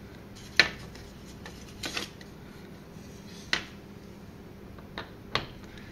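Small sharp clicks of metal and plastic parts as a syringe plunger is handled and fitted into a Hamilton PB-600 repeating dispenser: four clicks at uneven intervals over a faint steady room hum.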